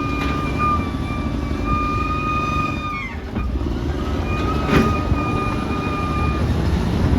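Caterpillar D6R XL bulldozer's diesel engine running steadily under work, with a high steady whine over it that slides down and cuts out about three seconds in, then returns a second or so later. A single sharp clank a little before five seconds.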